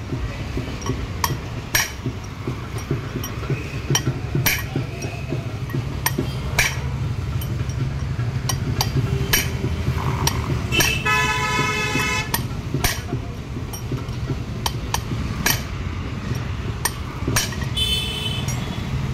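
Hammer blows, roughly one a second, on a tractor's crown wheel and differential assembly as the crown wheel is driven home. A vehicle horn sounds for about a second midway and briefly again near the end, over a steady traffic drone.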